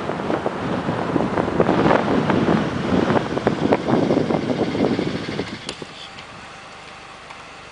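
Wind buffeting the microphone of a small handheld camera, a rough crackling rush that drops away after about five and a half seconds to a quieter steady outdoor hum.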